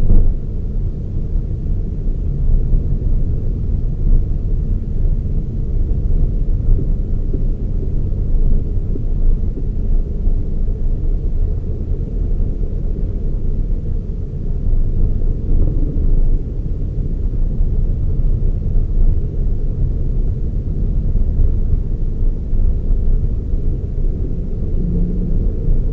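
Toyota Raize GR small SUV on the move: a steady low rumble of engine and road noise with no revving or gear changes.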